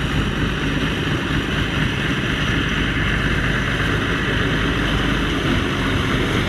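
A vehicle engine running steadily, with a constant rumble and hiss and no change in pitch or level.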